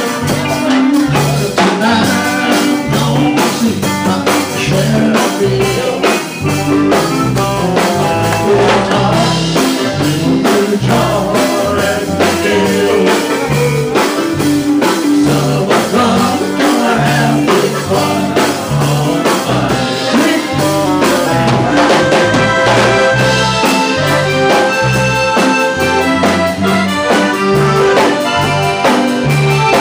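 Live band playing: a saxophone leads over a drum kit and a steady, pulsing bass line.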